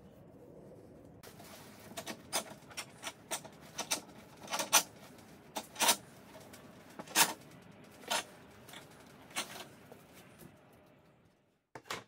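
Metal bar clamp being fitted and tightened across glued wooden boards: about twenty irregular sharp clicks and knocks, a few much louder than the rest, with two more close together just before the end.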